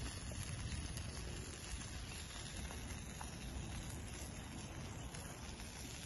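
Open log campfire burning with a few faint crackles over a steady low rumble.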